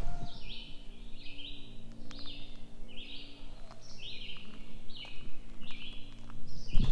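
A songbird in the woods singing the same short two-part phrase over and over, about one and a half times a second.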